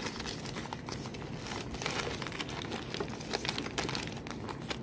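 Gift-wrapping paper crinkling as wrapped presents are handled and arranged, a dense irregular run of small crackles.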